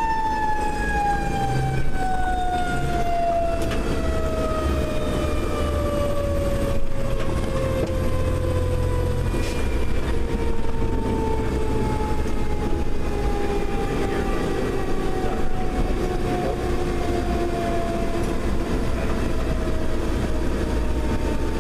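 Federal Q mechanical siren winding down: one long wail whose pitch falls slowly and evenly, heard from inside the fire engine's cab over the truck's steady engine rumble.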